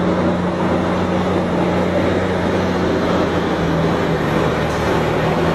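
Heavy semi-truck's diesel engine running with a steady low drone at an unchanging pitch under a constant rushing noise.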